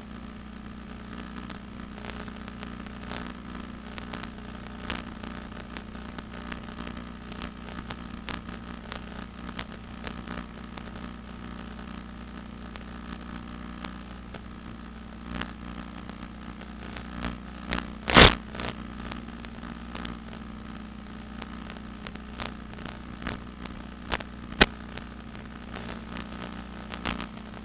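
Steady electrical hum and static from an FPV video downlink's audio channel, broken by scattered crackles and clicks; the loudest crackle comes about two-thirds of the way through.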